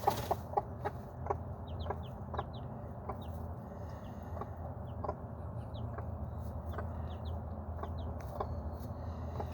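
Mother hen clucking in short low notes, about two a second, while her newly hatched chick cheeps in short, high, falling peeps.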